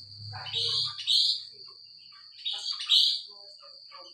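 Sooty-headed bulbul (kutilang) calling: two short bursts of paired bright notes, about a second in and again near three seconds.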